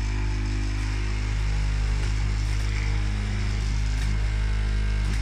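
Vibration motor of a 3D-printed RC CAT CS74B compactor model running: a steady, loud low hum with a buzz. The builder finds the vibration could be a lot stronger.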